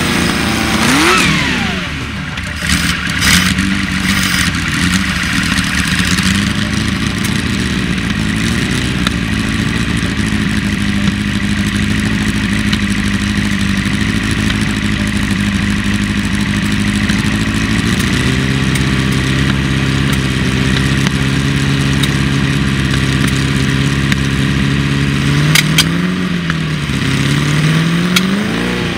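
A vintage Porsche prototype race car's engine idling loud and a little unevenly, with a quick throttle blip about a second in. Later it settles to a lower, steadier idle, then takes a few light blips near the end.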